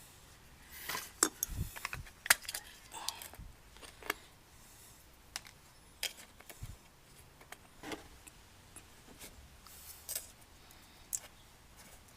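Scattered light clicks and clinks of small hard objects being handled, irregular and spaced out, with no running engine or steady sound.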